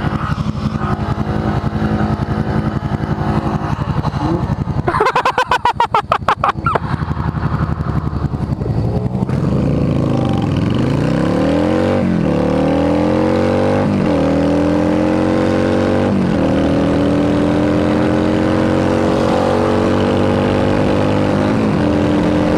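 Yamaha V-Star 650's V-twin engine pulling hard through the gears: its pitch climbs and drops back at each of several quick upshifts, then rises steadily in a higher gear. About five seconds in, a loud, rapidly pulsing burst lasts about two seconds.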